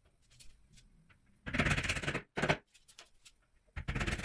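Hardboard back panel and particleboard frame of a flat-pack kitchen cabinet being worked into place by hand: three bursts of rattling, knocking handling noise, a long one about a second and a half in, a short one soon after, and another near the end.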